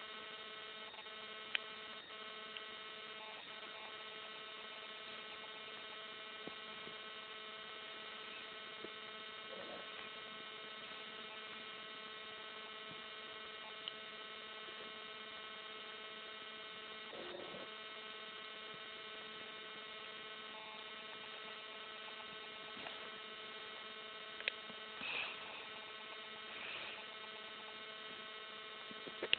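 Steady electrical hum with many overtones, with a few faint clicks and a couple of brief soft sounds near the end.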